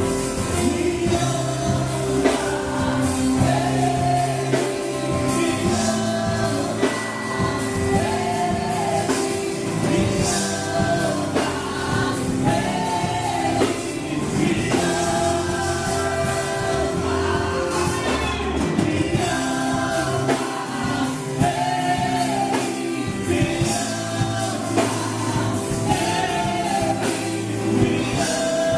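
Live gospel worship band performing a song: voices singing phrase after phrase over steady band accompaniment.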